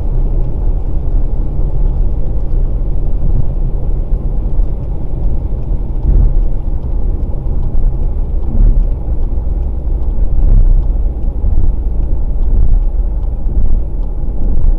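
Steady low rumble of road and engine noise heard inside a 2020 Volkswagen Passat Variant 1.6 TDI cruising on a wet road, with faint scattered ticks.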